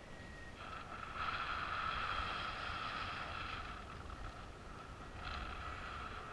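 Paraglider's variometer sounding a rapid high-pitched beeping tone, coming in about half a second in, loudest for a couple of seconds, fading, then sounding again about five seconds in. Low wind rumble on the microphone runs underneath.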